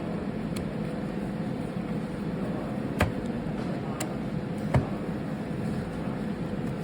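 Steady low hum with three sharp clicks, the first about three seconds in, the next a second later, and the last nearly five seconds in.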